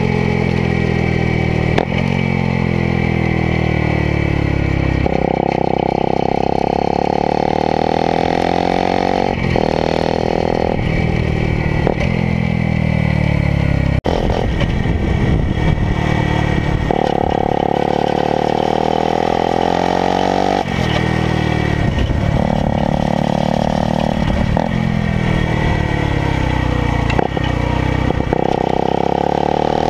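Yamaha motorcycle engine heard close beside its exhaust. It revs up through the gears, holds high revs, then drops back off the throttle, over and over, with wind rush.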